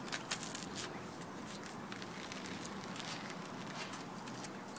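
Rubber-gloved hands pressing and rubbing roofing felt down onto its glue: a scratchy rustle of many quick ticks and crackles, the gloves dragging over the felt's gritty surface.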